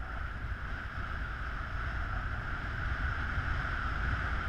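Steady wind noise from the airflow over the camera's microphone in paraglider flight: a low rumble under an even rushing hiss, with no distinct events.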